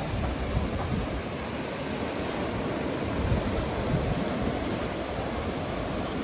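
Ocean surf washing onto a beach, a steady rushing noise, with wind buffeting the microphone in uneven low gusts.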